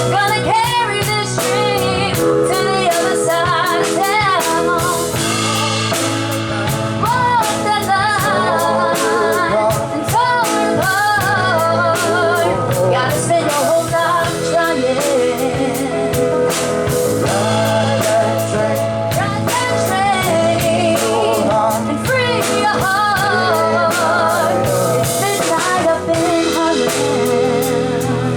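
Live soul band playing, with a lead singer's wavering melody carried over the band's steady bass and rhythm.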